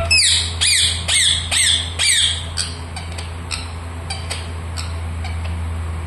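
Rose-ringed parakeet (Indian ringneck) giving a rapid string of short, sharp squawks that fall in pitch, about two or three a second. They are loudest over the first couple of seconds, then thin into fainter, scattered chirps. A steady low hum runs underneath.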